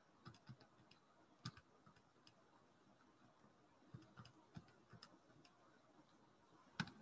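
Faint, irregularly spaced clicks of buttons being pressed on a Texas Instruments TI-30XS MultiView scientific calculator, about ten presses with long gaps between some of them.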